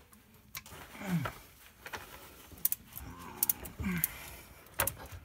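Metal hand tools clinking and clicking several times as the plug is refitted to the rear differential housing, with a couple of short, low voice sounds between the clicks.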